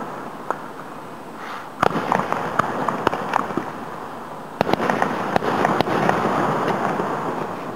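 Aerial firework shells bursting, heard from about a quarter mile away: two sharp bangs, one about two seconds in and one near five seconds in. Each bang is followed by a long echoing crackle.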